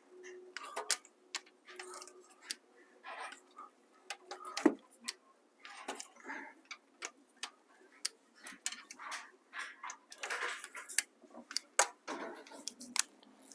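Click-type torque wrench ratcheting and clicking as HEMI V8 cylinder-head bolts are brought to 15 foot-pounds: irregular sharp clicks and short ratchet rasps, with metal clinks of the socket.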